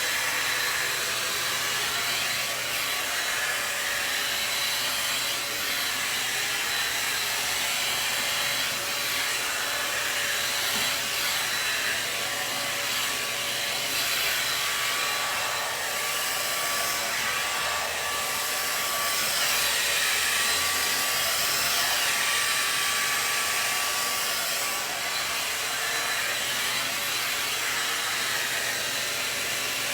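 A 5-in-1 blow dryer running steadily with its brush attachment fitted, blowing air through long hair to straighten it: an even rush of air with a faint high whine.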